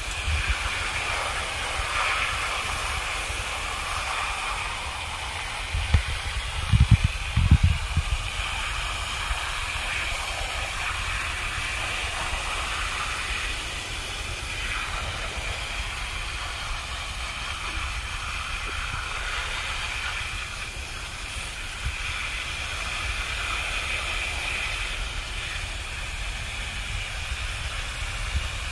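Garden hose spray nozzle hissing steadily as its jet washes mud off rocks and quartz crystals on a wire-mesh sifting screen. A few low bumps come about six to eight seconds in.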